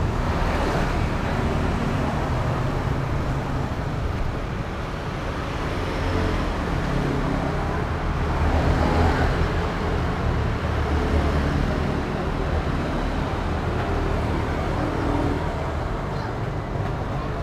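A motorcycle engine idling steadily, with street traffic around it.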